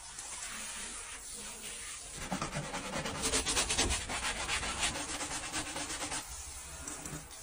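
Hand brush scrubbing wet, soapy foam over the bare sheet-metal floor pan of a stripped car body. The strokes become quicker and louder from about two seconds in, then ease off again about a second before the end.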